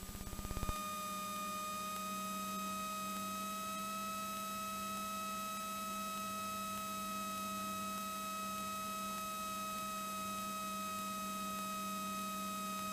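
Steady electronic hum made of several held tones at fixed pitches, heard on the cockpit intercom audio feed with no engine drone. It starts with a brief rapid buzz that swells in under a second, then holds level.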